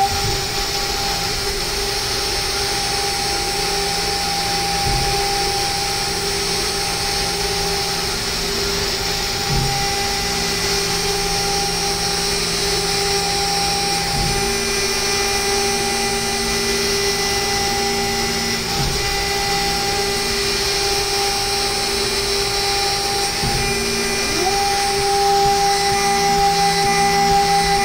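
CNC mill spindle running steadily at 24,000 rpm with a high, even whine as a 4 mm two-flute ball end mill takes a light parallel finishing pass in aluminium. Near the end the pitch briefly drops and climbs back, and the sound gets a little louder.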